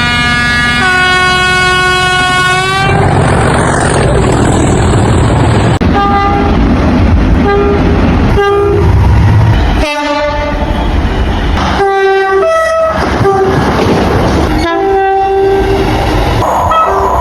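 Train horn sounding a long chord that changes to a different chord about a second in and sags in pitch as it ends. Then a train runs by with a steady rushing rumble, punctuated by a series of short horn blasts, some of them two-tone.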